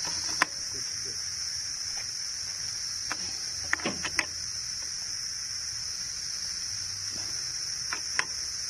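A few sharp metallic clicks of a T-handle socket wrench and screwdriver working the clutch pressure-plate bolts on a motorcycle's exposed clutch, over a steady high-pitched insect chirring.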